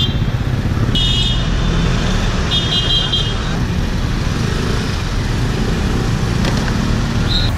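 Street traffic heard from inside a minibus: a steady low engine rumble, with two short runs of fast beeping from a vehicle horn, about a second in and again around three seconds.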